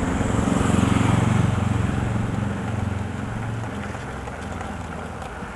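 A motor vehicle passing on the street: a low rumble that swells about a second in and then fades away.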